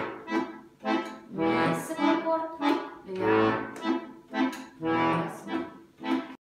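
Jupiter concert bayan (button accordion) playing the left-hand waltz accompaniment in a steady oom-pah-pah: a low bass note followed by two shorter chords, four bars in a row. The sound starts and cuts off abruptly, as a separate edited-in clip.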